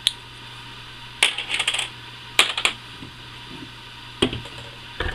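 Small hard plastic air-rifle parts, including a pistol grip cap, clicking and clattering against a hard tabletop as the buttstock is handled and the parts are set down, in several short bursts with a duller knock near the end.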